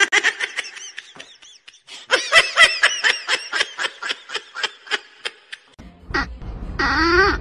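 A person laughing hard in quick repeated bursts, about four a second, with a brief pause about a second and a half in. The laughter stops near six seconds. After that, over a low steady hum, a cat meows: once briefly, then a longer meow that rises and falls in pitch near the end.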